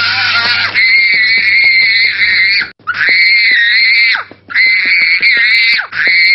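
Young boy screaming in a tantrum for sweets: a string of long, high, held screams, each lasting a second or two, with short breaks for breath between them.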